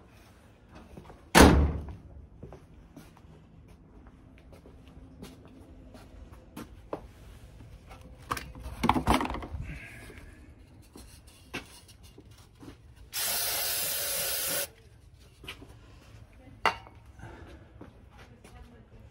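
A car door shutting with one loud knock, then scattered handling clicks and knocks, and a steady spray hiss about a second and a half long, two-thirds of the way through.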